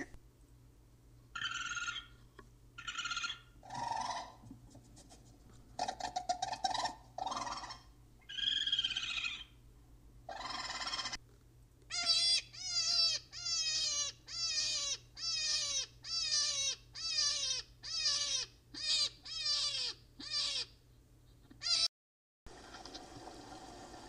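Small animal calls, a mix of short squeaks and chattering, for the first half. Then a hare squeals about thirteen times in a steady series, each cry high and falling in pitch, roughly one every 0.7 seconds.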